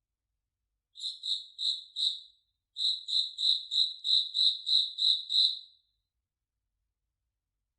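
Cricket chirping: a run of four high, clear chirps, a short pause, then a run of about nine more at roughly three chirps a second.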